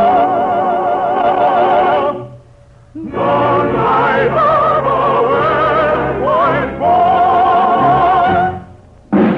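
Operatic singing with orchestral accompaniment, from a 1950s radio broadcast recording: voices hold long notes with vibrato in two phrases, with a brief break between them. The music stops shortly before the end.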